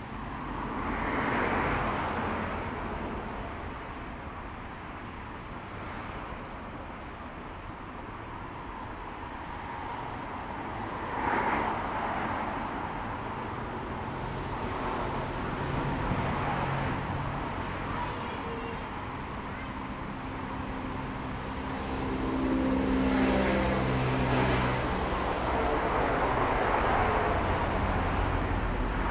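Street traffic: road vehicles passing one after another, each swelling and fading. In the second half a heavier vehicle goes by with a humming engine tone that rises to the loudest point of the stretch.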